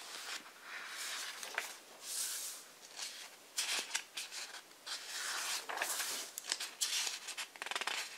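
Pages of a thick hardcover book being turned by hand several times in a row. Each turn is a rustling swish of paper, with a few sharp flicks as pages fall.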